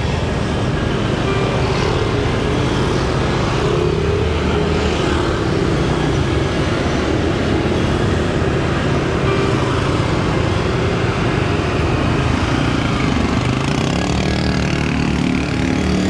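Motor vehicle running along a road: steady engine and road noise whose pitch wavers, rising near the end.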